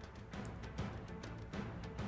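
Background music under a news bulletin, with a steady drum beat of about two or three hits a second.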